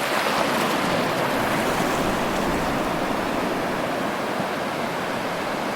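Ocean waves washing in, a steady rush of surf that swells slightly about half a second in and then eases.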